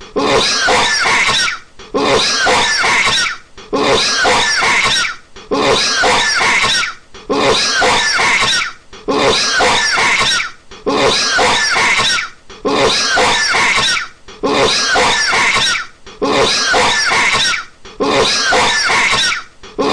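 A man coughing in a loop: the same coughing fit, about a second and a half long, repeats with a short gap roughly every 1.8 seconds, about eleven times.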